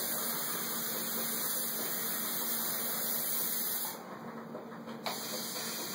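Aerosol insecticide can spraying in a steady hiss. It stops about four seconds in and starts again about a second later.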